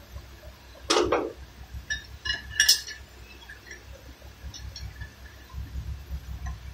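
Metal tools and brake hardware clinking as they are handled at a wheel hub during a brake disc and pad job. There is a knock about a second in, then a quick run of ringing clinks around three seconds, and a few fainter ticks later.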